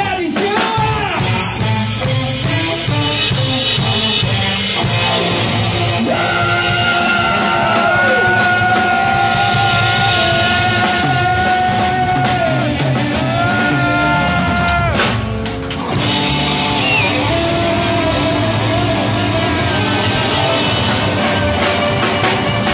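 Live band playing: tenor saxophone, electric guitar, keyboard and drum kit, with a male singer. There are long held notes through the middle and a brief drop about fifteen seconds in.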